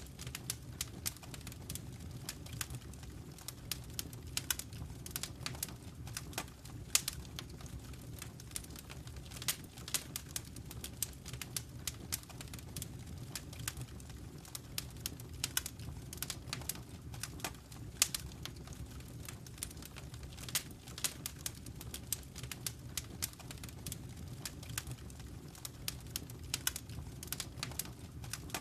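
Wood fire in a fireplace crackling: irregular sharp pops and snaps, several a second, over a low steady rumble.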